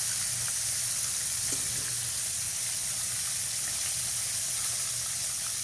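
Flour-dredged turkey cutlets frying in oil in a skillet, giving a steady sizzle, with one small click about a second and a half in.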